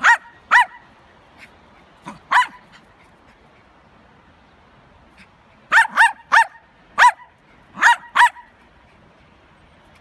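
Small dogs barking sharply while play-sparring: high-pitched yapping barks, two near the start and one more a couple of seconds in, then after a pause a quick run of about six barks in the second half.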